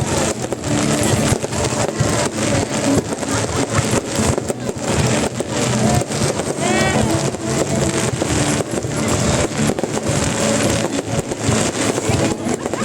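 Fireworks going off in a dense, continuous barrage of bangs and crackles, with no break.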